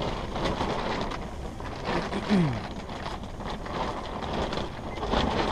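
Strong wind buffeting an ice-fishing tent, the fabric rustling and flapping irregularly, with a short falling voice-like sound about two seconds in.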